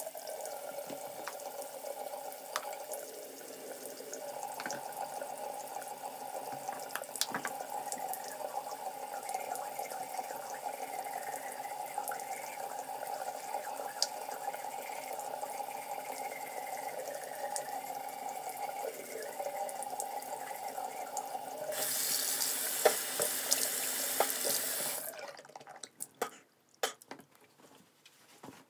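Bathroom sink tap running steadily during tooth brushing, with a few small clicks over it. About 22 s in the water runs louder and fuller for about three seconds, then it is turned off.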